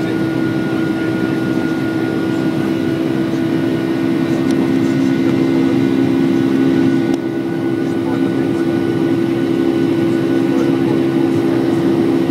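Jet airliner engines and airflow heard inside the passenger cabin during the climb after takeoff: a steady drone with a low hum. It dips briefly about seven seconds in.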